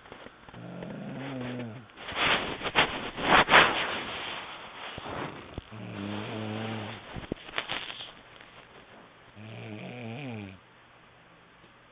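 A sleeper snoring: three drawn-out snores with a low, wavering pitch, about four to five seconds apart, with noisy breaths between them.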